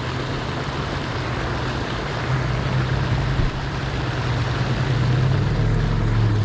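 A steady low mechanical hum over a broad rushing noise, like engine noise, growing a little louder toward the end.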